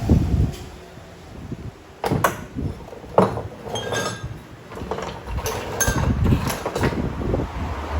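Metal parts and tools clinking and knocking against each other: a series of irregular sharp clinks, some with a brief metallic ring.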